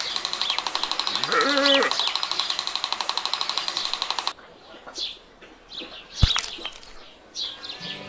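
Birdsong: a rapid, steady trill with a brief rising call in it, which cuts off suddenly about four seconds in, leaving scattered short chirps. Near six seconds comes a single sharp tap, a small hammer striking a bamboo post.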